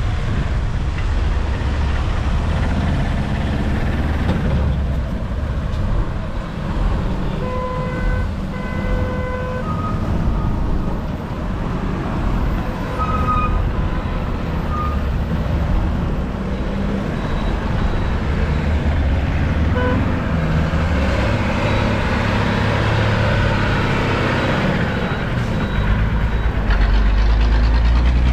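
Road traffic heard from a moving two-wheeler: a steady low rumble of engines and road noise, with a vehicle horn tooting twice about eight seconds in and a few more short horn beeps a few seconds later. The low rumble grows louder near the end.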